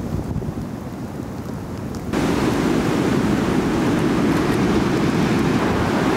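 Ocean surf washing onto a cobble beach, with wind noise on the microphone. The sound is steady and jumps suddenly louder about two seconds in.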